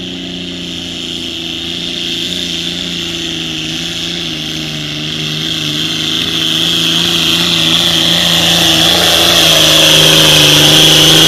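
John Deere limited prostock pulling tractor's turbocharged diesel engine running at full throttle while dragging the pulling sled, with a high steady whine over the engine note. It grows louder as the tractor comes closer.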